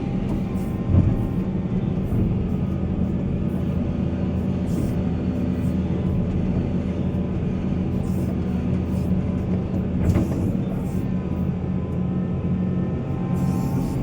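Heavy diesel earthmoving machinery running steadily with a deep engine drone, with a sharp knock about a second in and another around ten seconds in.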